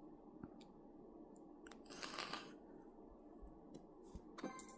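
Near silence: room tone with a few faint clicks and a short soft rustle about two seconds in.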